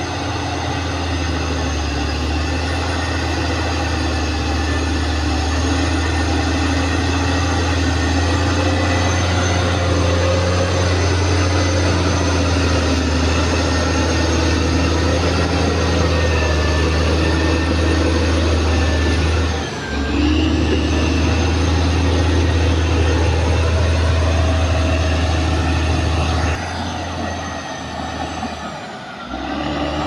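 Caterpillar D6R XL bulldozer's diesel engine running steadily under load, with a brief dip about two-thirds through and the engine easing off near the end before picking up again.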